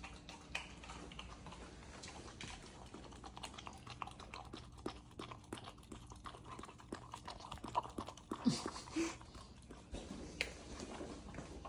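Dog licking from a paper cup held out to it: a run of quick wet licks and small clicks of tongue on paper. About eight and a half seconds in comes a brief low vocal sound.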